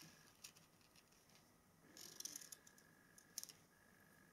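Near silence with a few faint ticks and rustles of paper being handled as a quilled paper strip is pressed onto card.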